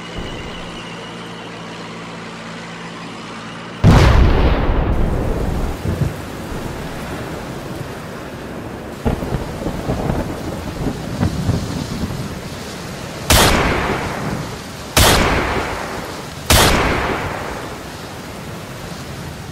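Battle sound effects: a loud boom about four seconds in trailing off into a continuous rumble, then three sharp shots about a second and a half apart, each with a long echoing tail.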